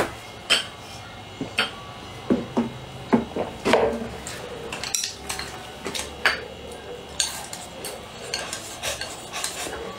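Wooden chopsticks clicking and scraping against a ceramic rice bowl, in scattered sharp clicks and knocks. Near the end the bowl is held to the mouth and food is shoveled in with the chopsticks.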